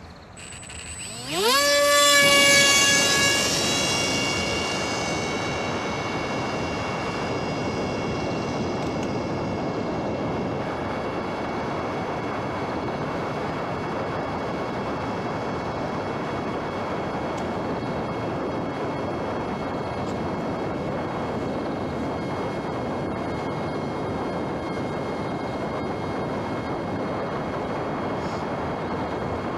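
Electric RC airplane's brushless motor and propeller throttling up for takeoff: a whine that rises in pitch about a second in, then holds steady at full power. From about four seconds on, a steady rushing noise of air covers the motor, whose whine stays faintly in it.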